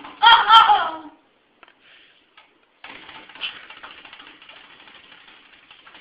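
A boy's short burst of laughter in the first second, then a few faint clicks and a faint, steady rustling noise.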